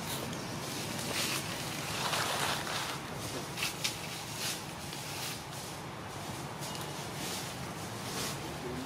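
Outdoor ambience: a steady hiss over a faint low hum, with scattered soft rustles and crackles of dry leaf litter as the monkeys shift about.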